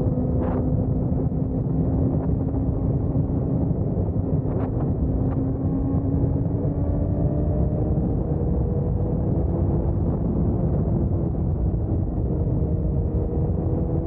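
Motorbike engine running under way, its pitch rising slowly and steadily as the bike gathers speed, over a heavy rush of wind and road noise.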